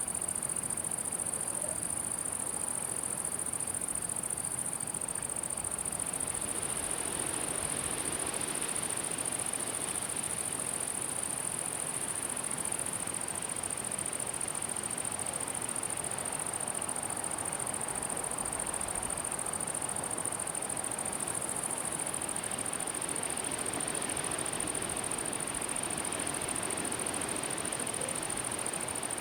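Crickets chirring in one steady, unbroken high-pitched buzz, over a soft rushing haze that swells now and then.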